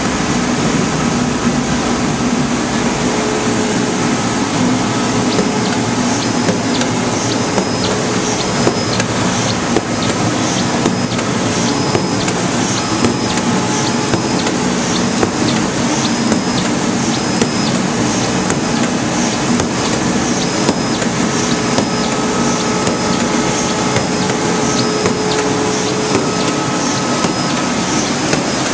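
Elektron flatbed cutting table running as its head punches holes in a film sheet: a steady loud machine drone, with a short high sound repeating about once a second from a few seconds in as the head steps from hole to hole.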